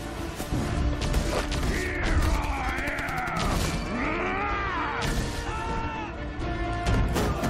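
Action-film soundtrack mix: an orchestral score under repeated crashing impacts and an explosion, with mechanical whirring sweeps, rising and falling whines, from a giant robot about two to four seconds in.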